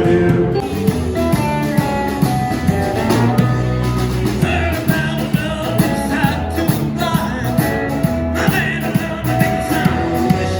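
Music with singing, guitar and a steady beat, in a rock-and-roll or country style.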